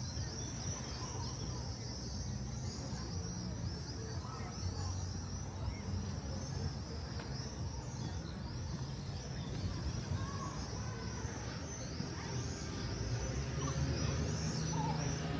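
Cicadas buzzing in a continuous high-pitched chorus of rapidly repeating pulses, over a low rumble of outdoor background noise that grows a little louder near the end.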